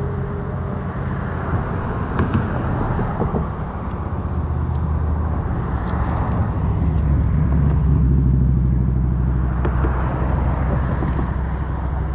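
Motor vehicle engine running, a low steady hum with a hiss that swells and fades, like traffic passing, with a few faint clicks.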